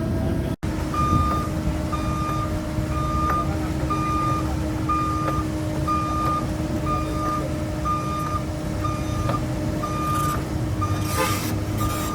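Diesel engine of a CAT 307 amphibious excavator running steadily while its travel alarm beeps over and over, about three beeps every two seconds. A short hiss comes near the end.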